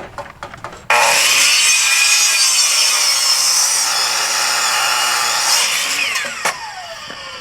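A power tool starts abruptly and runs loud for about five seconds with a hissing cutting noise, then is released and its motor winds down, the pitch falling near the end.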